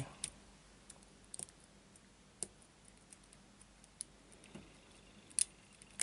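Lock-picking tools working inside a small brass pin-tumbler padlock: faint, irregular metallic clicks and ticks from the pick against the pins and the tension wrench in the keyway, with a sharper click about five seconds in.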